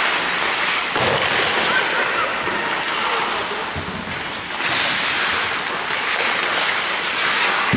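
Steady hiss of an ice hockey rink in play: skate blades scraping and carving the ice, with faint voices echoing in the arena.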